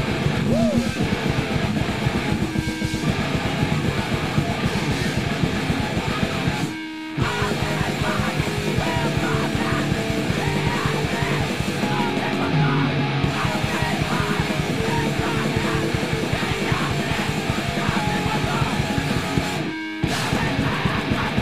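Punk rock band playing fast and loud: distorted electric guitars, bass and quick drumming. The band breaks off for a split second twice, about seven seconds in and near the end.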